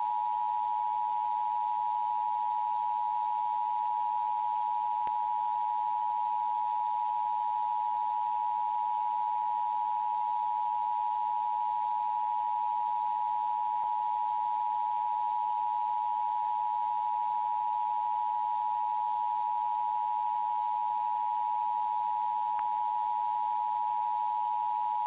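A steady, unbroken electronic tone of one pitch, a little under 1 kHz, over a faint hiss: a continuous emergency-broadcast alert tone.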